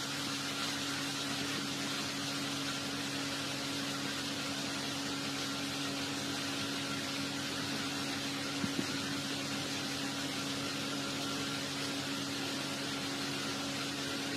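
A steady low hum with an even hiss underneath, like a fan or electrical hum, with two faint ticks about two-thirds of the way through.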